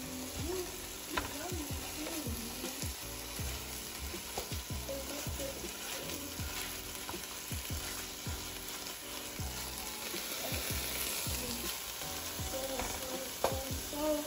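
Ground ostrich meat sizzling in a nonstick frying pan as a plastic slotted spatula chops and scrapes it apart, in repeated irregular strokes over a steady sizzle.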